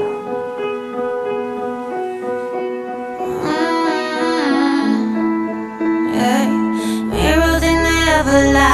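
Background pop song: piano notes, then a female voice singing from about three and a half seconds in, with bass coming in near the end.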